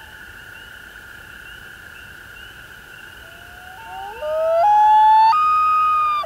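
Common loon wailing: a call that rises in steps, its last high note held loud for about two seconds and then cut off suddenly, over a steady faint high drone.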